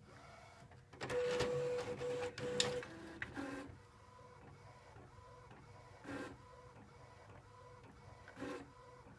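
Epson Artisan 1430 inkjet printer starting a print job. There is a louder stretch of mechanical whirring in the first few seconds, with a brief steady whine and a few clicks. It then settles into quieter running with a soft swish about every two seconds.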